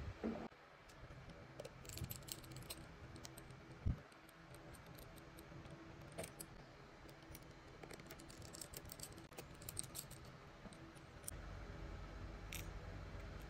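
Faint scattered clicks and ticks of small tools on a phone's plastic housing: a precision screwdriver turning a tiny screw, then tweezers picking at the case. There is one soft thump about four seconds in.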